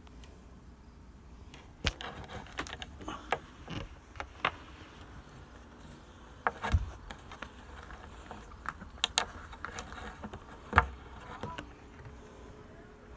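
Scattered light knocks, clicks and rubbing from a handheld phone being moved close against cabin cushions and woodwork, with one louder knock near the end.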